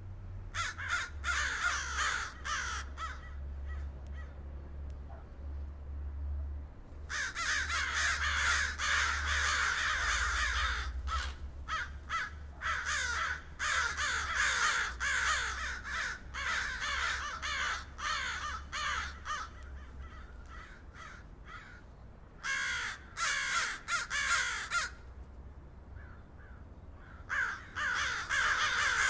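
A flock of crows cawing, many birds calling over one another in dense bouts of harsh caws broken by short lulls. A steady low hum lies underneath.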